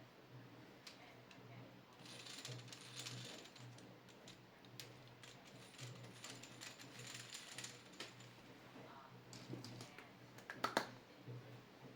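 Faint clicking and rattling of plastic LEGO Technic pieces being handled, with a sharper burst of clicks near the end.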